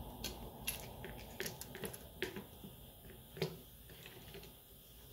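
Plastic smartphone parts and frames clicking and tapping against each other and the tabletop as they are handled and set down: a series of light irregular clicks, with one sharper knock about three and a half seconds in.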